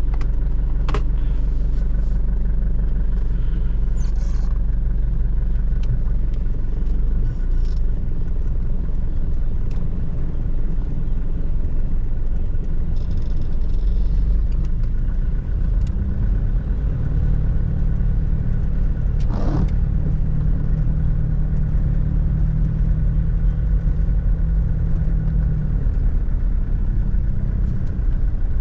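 Toyota Hilux's 3.0-litre four-cylinder 5L diesel engine running with a steady low rumble, its note changing about halfway through, with a few light clicks.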